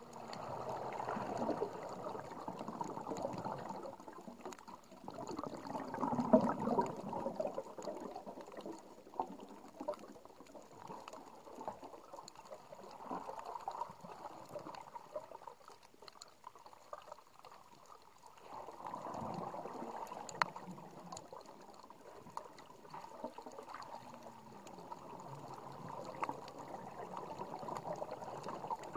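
Underwater water noise at a camera resting on a shallow reef: sloshing and gurgling that swells and fades in surges every few seconds, with scattered sharp clicks.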